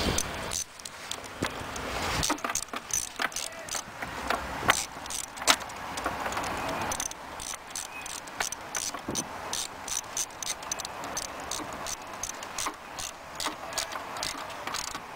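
Ratchet and socket clicking as the headlight mounting screws are turned back in. Sharp metallic clicks, sparse at first, then coming in quick, fairly regular strings from about halfway.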